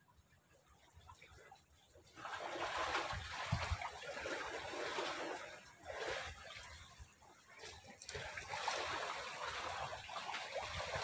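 Water splashing and trickling, starting about two seconds in and going on unevenly, with short lulls.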